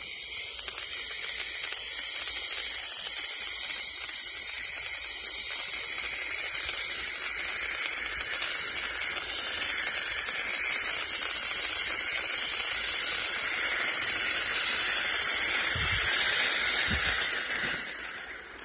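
Golden Diamond firework fountain spraying sparks with a steady, loud hiss, swelling a little near the end and then dying away.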